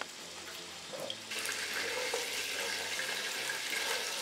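Chunks of beef frying in hot oil in a pot, a steady sizzle that gets suddenly louder about a second in. The beef is being fried first to render out its fat.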